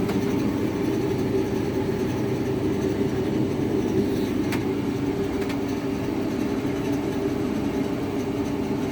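Hotpoint TL52 tumble dryer running with a steady drone and hum: the noise problem its owner is showing. Two faint ticks about halfway through.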